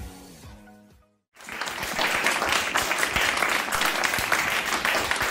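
Background music fades out over about a second, followed by a brief silence, then steady applause from many children clapping their hands.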